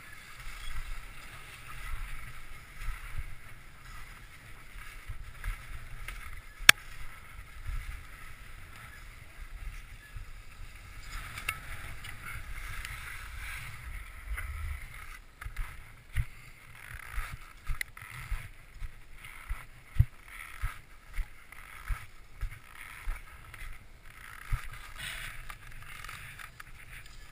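Downhill skis scraping and hissing over packed groomed snow on a run, with a low rumble underneath. One sharp click comes early, and from about halfway on there is a series of sharp knocks about one a second.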